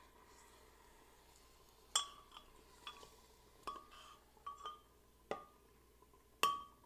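Metal ladle clinking against a ceramic clay pot while scooping out its contents: about seven short, ringing clinks from about two seconds in, the loudest near the end.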